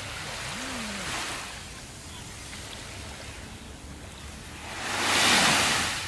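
Small sea waves lapping on a sandy beach: a soft wash about a second in, then a louder wave breaking and washing up the sand near the end, over a steady low hiss of surf.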